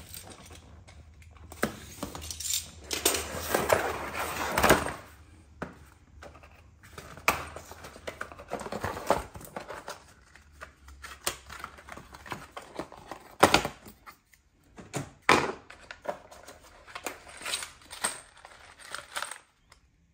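Cardboard box of a TV wall mount being opened and unpacked by hand: flaps and cardboard inserts rustling and scraping, with several sharp knocks and small clatters as parts are lifted out and set down on a wooden floor.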